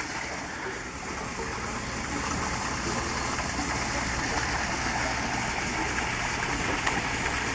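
Steady rushing, gushing water, holding even throughout without breaks.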